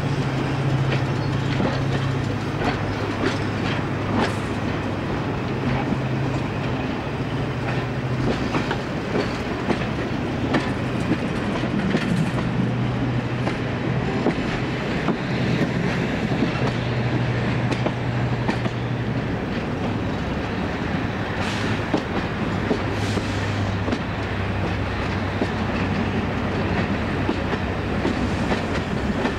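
Class 55 Deltic diesel locomotive's twin Napier Deltic two-stroke engines running with a steady drone as it hauls the train, heard from an open window of a coach behind it, with the coach wheels clicking over rail joints.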